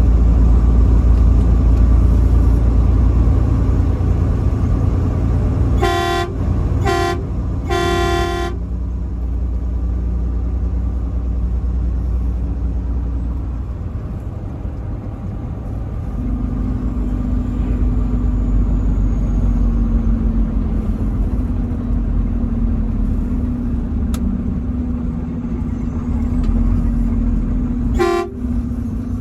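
Truck engine and road noise running steadily. A truck horn sounds three short blasts about six to eight seconds in, the last one the longest, and one more short blast near the end.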